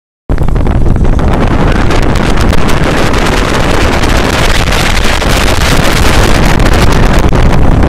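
Heavy wind buffeting the microphone, a loud steady rush with a deep rumble underneath, as from filming out of a moving vehicle. It cuts in abruptly just after the start.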